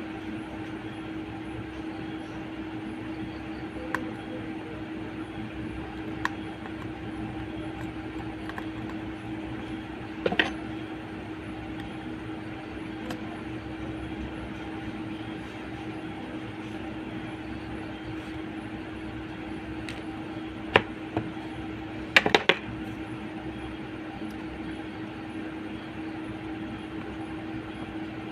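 Steady mechanical hum with one constant tone, broken by a few sharp clicks and taps of small metal tools. The loudest is a quick cluster of clicks about 22 seconds in.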